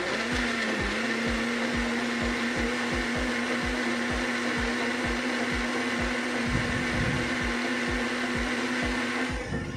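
Electric mixer grinder running at a steady pitch, blending cooked carrots with milk; the motor cuts off near the end.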